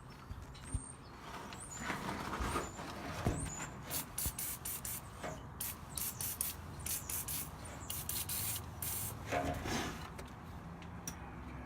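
Aerosol lubricant sprayed onto the leaf-spring bolts in a series of short hissing bursts, with a few knocks and clinks of tools on metal.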